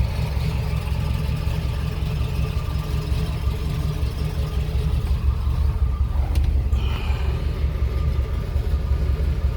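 1969 Chevrolet Camaro SS's 350 L48 small-block V8 idling steadily.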